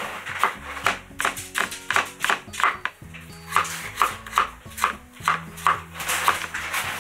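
Kitchen knife slicing cucumber into thin strips on a wooden cutting board: a quick, slightly uneven run of knocks, about two to three a second, with background music.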